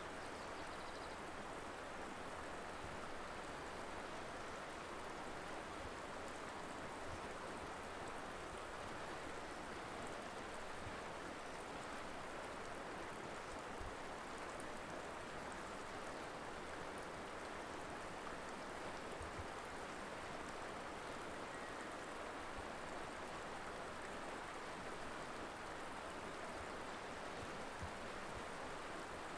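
Mountain river flowing: a steady, even rush of water over rocks.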